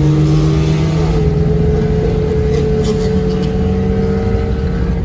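Car engine held at steady high revs, its pitch creeping up slightly about a second in and then holding.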